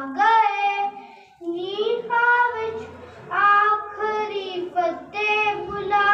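A boy singing a devotional song into a microphone, in long held notes that slide in pitch, with a short break between lines about a second in.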